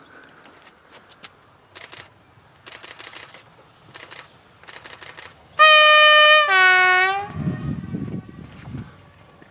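Uerdinger railbus sounding its two-tone horn just past halfway: a higher note held about a second, then a lower note slightly shorter, followed by a low rumble from the passing railcar.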